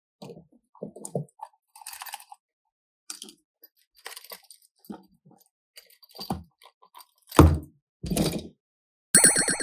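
Slime and clay being squeezed and mixed by hand: irregular wet squelches and crackly crunches, with a louder low squish about two-thirds of the way through. A short buzzy pitched tone sounds near the end.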